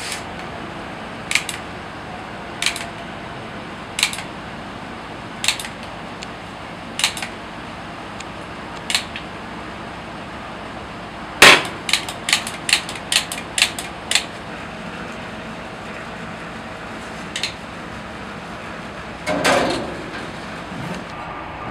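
Sharp metallic clicks and clacks from taiyaki making: a hand-held metal batter dispenser and cast-iron fish-shaped molds. Single clicks come about every second and a half, then a quick run of louder clacks, and a longer rattling clatter near the end.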